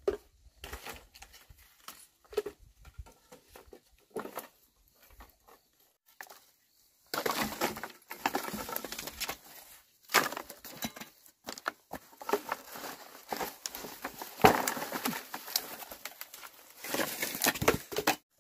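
Dry bamboo being chopped and split with a machete, with cracking, splintering and clattering as the pieces break and are piled together. The knocks are sparse at first; from about seven seconds in the cracking comes in dense stretches with several sharp strikes, the loudest a little past the middle.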